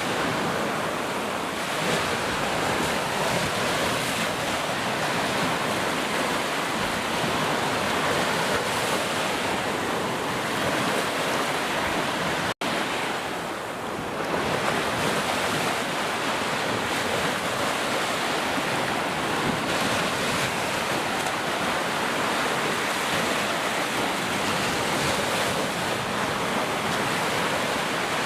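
Heavy rain falling in a steady, dense hiss. It cuts out for an instant about halfway through, then comes back.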